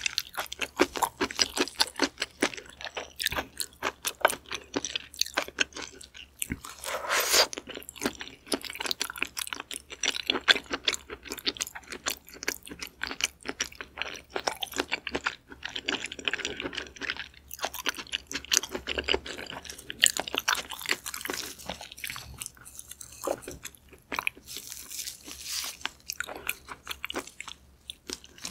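A person chewing and crunching food close to the microphone, with dense crackly bites and chews all through.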